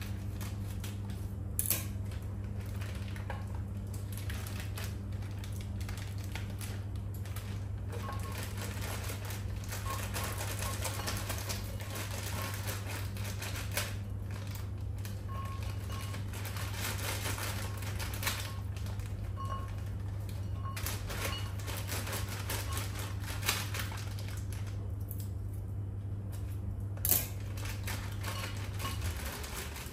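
Walnut pieces clicking and clattering from a plastic bag into a glass jar, with the plastic crinkling, in an irregular run of small ticks and a few sharper knocks. Under it is a steady low hum that stops near the end.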